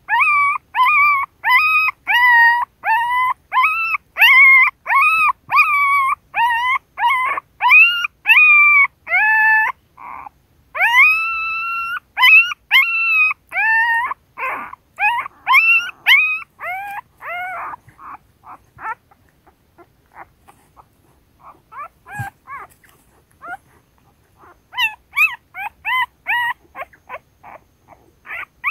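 Newborn puppies crying while nursing: a steady run of high whining cries, about two a second, each rising then falling in pitch. About two-thirds through they thin to faint short squeaks and briefly fall quiet, then start up again near the end.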